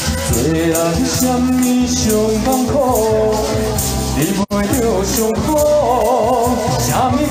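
A pop song played through a PA over a backing track with shaker-like percussion, a man singing live into a handheld microphone. The sound drops out for an instant about halfway.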